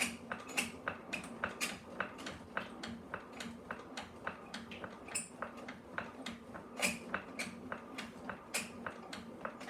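Potter's kick wheel turning, with a steady rhythmic clicking about three to four times a second and a faint low hum underneath.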